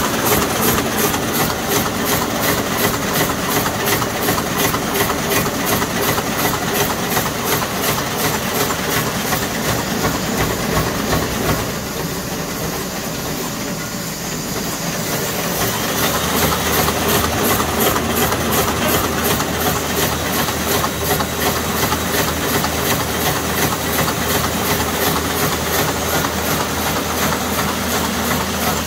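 Buhrs ITM BB600 servo-driven envelope inserting machine running with its covers off: a fast, even, rhythmic clatter from its cycling mechanisms over a steady hiss. It quietens for a few seconds about twelve seconds in, then picks up again with a low hum added.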